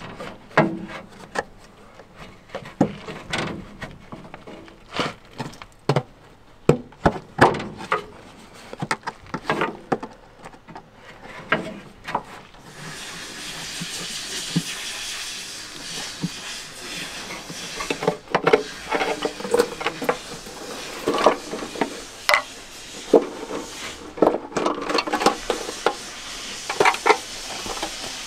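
Hand work on the rocker (valve) cover of a V8 turbo diesel: repeated metallic clicks, knocks and scrapes as its knob nuts are undone and the cover is worked loose and lifted off. A steady hiss comes in about halfway.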